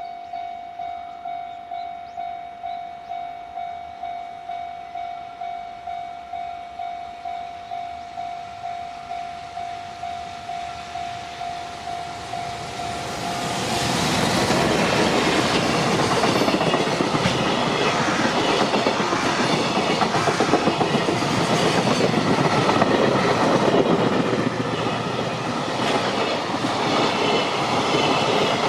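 A Japanese level-crossing warning alarm clanging about twice a second. About 14 seconds in, a JR Freight train arrives and passes close by, its wagons' wheels clicking over the rail joints and covering the alarm.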